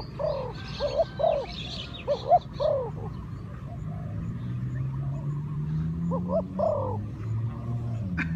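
Birds calling: short, arching call notes in clusters, a few per second, over a low steady hum that slowly rises in pitch in the second half.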